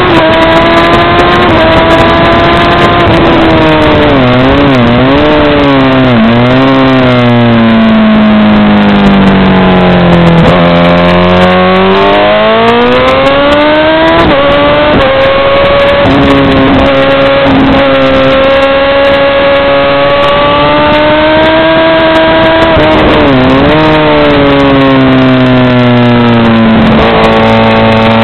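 Honda CBR1000RR (SC57) inline-four engine at racing revs, recorded on the bike: two blipped downshifts about five seconds in, revs sinking through a corner, then climbing hard with upshifts and holding steady. More quick downshifts come about two-thirds of the way through before it pulls again.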